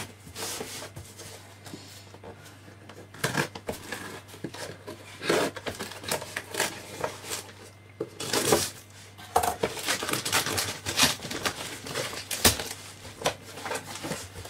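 A cardboard shipping box being opened with scissors: the blades slicing the packing tape, tape ripping away and the cardboard scraping and rustling, in irregular strokes that come thicker in the second half.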